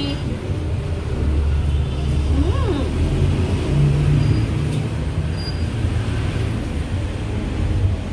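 Low, steady rumble of a motor vehicle engine running nearby.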